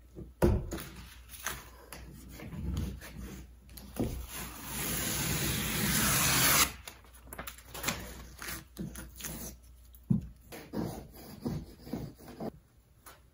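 Wallpaper border being peeled off a wall: a long paper tear that grows louder for over two seconds and cuts off suddenly, among scattered scraping, rubbing and knocks, with a sharp knock about half a second in.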